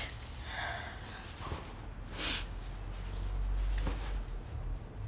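A woman crying softly: a faint whimper early on and a sharp sniff about two seconds in.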